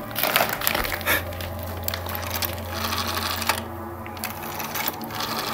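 Rotary dial of an old office telephone being turned by a finger and spinning back, a quick run of mechanical clicks and whirring.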